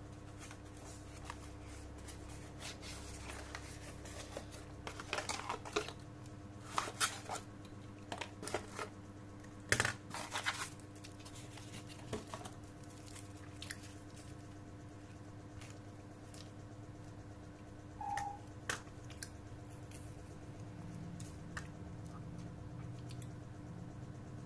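Packaging and small plastic parts being handled and rustled, with scattered clicks and taps, over a steady low hum. A single short tone sounds once, about eighteen seconds in.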